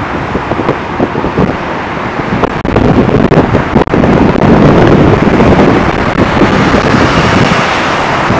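Wind buffeting the microphone over road traffic going by; the noise gets louder about two and a half seconds in and stays loud.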